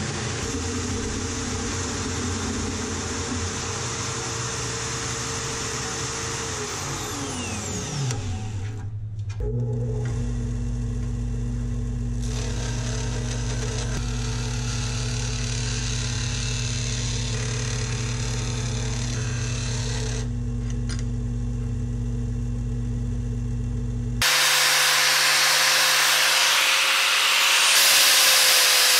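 Three power tools working steel one after another. First a Milwaukee portable band saw cuts steel, its motor winding down in a falling whine about seven seconds in. Then a disc sander grinds the steel steadily, and from about 24 seconds an angle grinder grinds a steel edge, the loudest part, louder still near the end.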